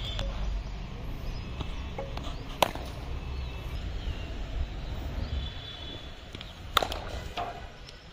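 Two sharp knocks of a cricket bat striking the ball, one about two and a half seconds in and a louder, doubled one near the end, over a low rumble and faint bird chirps.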